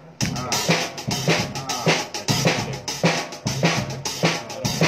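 Drum kit being played in a steady beat: bass drum and snare hits under hi-hat and cymbal strikes, about three hits a second.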